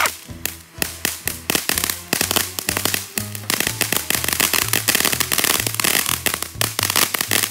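Ground fountain firework spraying sparks with rapid, irregular crackling pops. Background music with a steady bass pulse plays under it.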